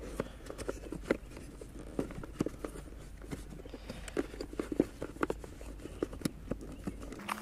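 Irregular small clicks and taps of hands handling plastic battery-box parts and wiring as the new starter relay and battery-area pieces are fitted back in place, over a steady low rumble.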